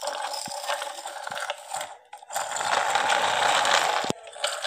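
Plastic wheels of a toy truck rolling and rattling over a hard stone floor as it is pushed along by hand, in two stretches of about two seconds each with a short break between.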